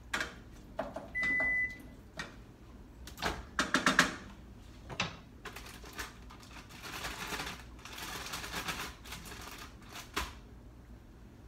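Microwave oven beeping once, a short steady tone, about a second in, followed by knocks and clicks as the microwave is opened and something is handled, with a few seconds of crinkling rustle in the second half.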